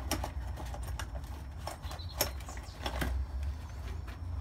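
Irregular light clicks and knocks of tools and small parts being handled on a workbench, over a low steady rumble.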